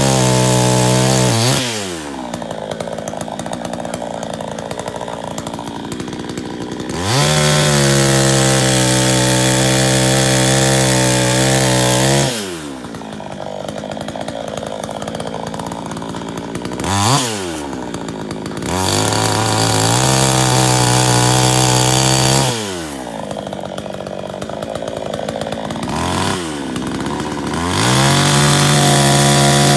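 Two-stroke chainsaw running at high revs; three times its pitch drops sharply into a lower, rougher stretch of several seconds, then climbs back up to full speed.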